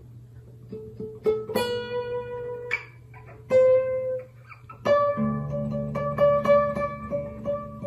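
Guitar being plucked: a few single notes picked one by one, then from about five seconds in one note picked over and over above a held low note.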